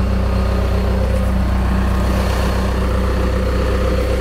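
Gehl telehandler's diesel engine idling steadily with a low, even hum.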